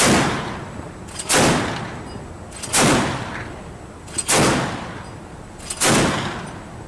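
Mk 38 mount's 25 mm M242 Bushmaster chain gun firing single shots: five loud reports about one and a half seconds apart, each ringing out for about a second.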